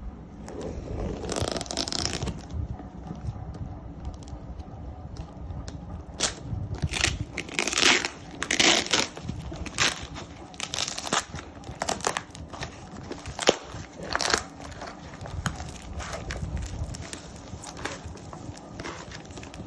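Graphics card box and packaging being handled and opened: irregular rustling of cardboard and plastic with scattered sharp clicks and knocks, loudest around eight to nine seconds in and again briefly past thirteen seconds.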